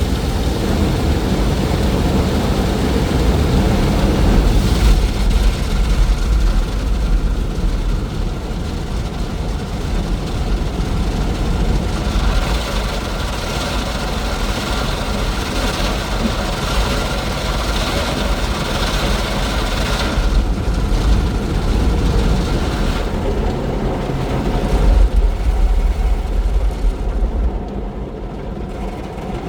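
Automatic car wash running: a steady, loud low machine rumble under a hissing wash that swells and fades at times, easing a little near the end.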